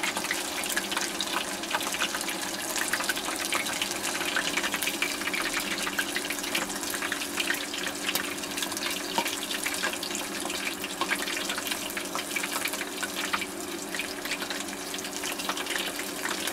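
Chicken pieces deep-frying in a small pot of hot oil, sizzling and crackling steadily as chopsticks stir them, over a faint steady hum.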